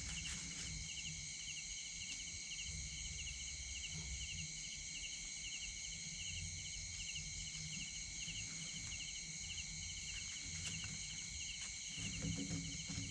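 Insect chorus chirring steadily in several high, even bands, one with a fast, regular pulse. Under it runs a low rumble, with a few faint clicks.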